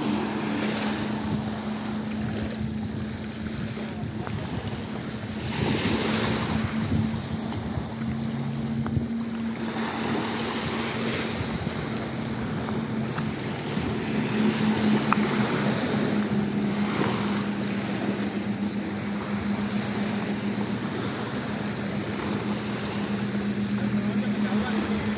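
Speedboat outboard engines running at speed with a steady droning hum, under gusts of wind on the microphone and rushing water.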